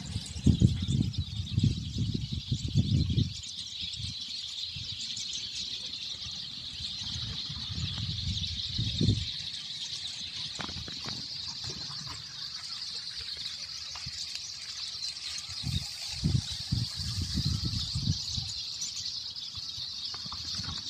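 A flock of black-chinned siskins twittering and chattering together in one dense, continuous high chorus. Low rumbling bursts come in the first three seconds and again about sixteen to eighteen seconds in.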